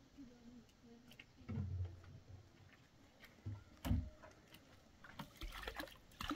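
Faint handling sounds: scattered clicks and patter of grain being handled in a metal pan, then a sharp knock about four seconds in and a denser clatter near the end as a plastic water can is handled.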